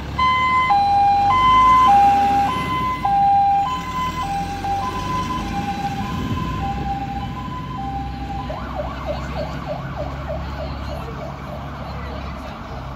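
A STAR fire engine's two-tone siren alternates a high and a low note, loudest at first and fading as the truck pulls away. About two-thirds of the way through, it switches to a quick repeating rising yelp, with the truck's engine running underneath.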